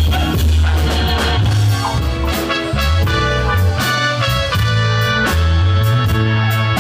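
Live band playing an upbeat Latin groove: drum kit, timbales and cymbals over a steady bass line, with keyboard chords held through the middle.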